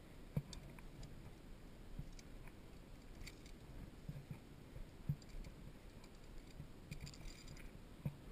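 Faint, scattered clicks and dull knocks of a via ferrata climber's gear and hands against the rock and steel cable, with a quick run of sharper clicks about seven seconds in.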